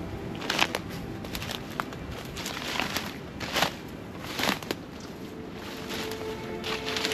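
Footsteps pushing through dry undergrowth: dead leaves, twigs and brambles crunching and snapping underfoot in irregular crackles.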